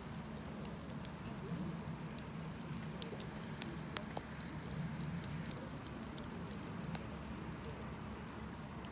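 Wood campfire burning: scattered sharp crackles and pops over a steady low rumble, the loudest pop about three seconds in.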